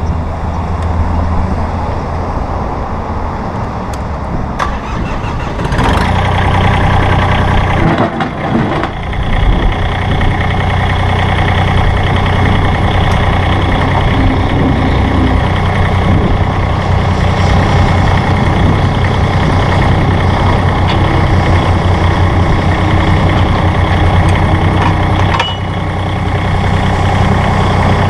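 Diesel engine of a Massey Ferguson GC-series sub-compact tractor running. Its speed is raised about six seconds in, with a brief dip around eight seconds, and it holds steady until it eases off briefly and comes back up near the end.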